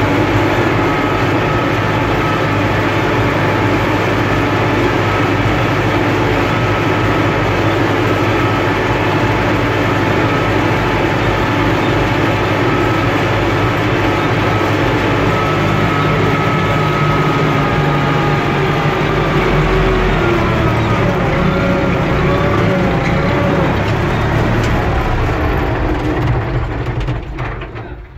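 UTB Universal 650 tractor's four-cylinder diesel engine running steadily under load, pulling a seedbed cultivator (combinator), heard from inside the cab. The engine gets much quieter about two seconds before the end.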